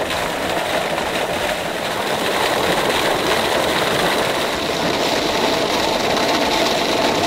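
Pool water jet spouting and splashing down into a swimming pool: a steady, even rush of falling water.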